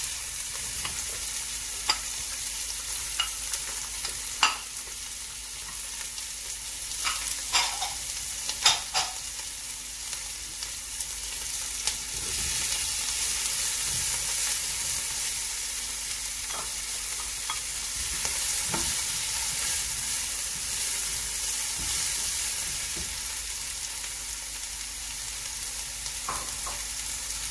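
Diced bell peppers frying in hot oil with onion and garlic in a non-stick pan, a steady sizzle as they go in and are stirred. A black slotted spatula clicks and scrapes against the pan now and then, most often in the first ten seconds or so.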